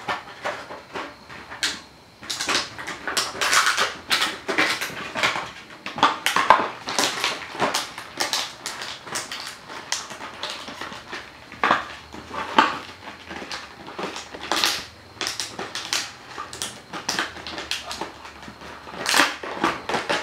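Empty plastic water bottle crinkling and crackling in quick, irregular snaps as a puppy chews, paws and pushes it around.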